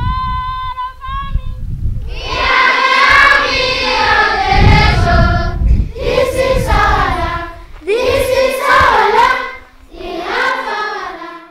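A large group of schoolchildren singing together in phrases, with short pauses between them. Before the singing, a single steady note is held with brief breaks.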